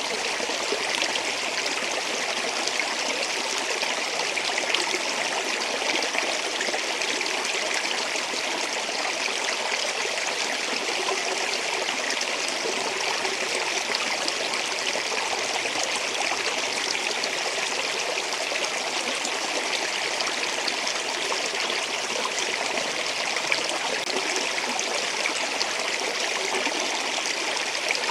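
Flowing water running steadily, an even, unbroken rushing sound with a fine splashy texture.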